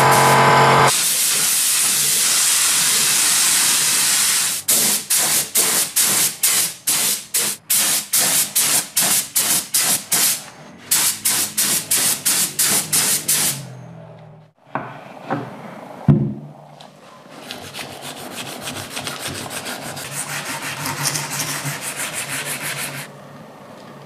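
Aerosol spray paint hissing: one long steady pass, then many quick short bursts, about two or three a second, then softer spraying near the end, with a single knock about two-thirds of the way through.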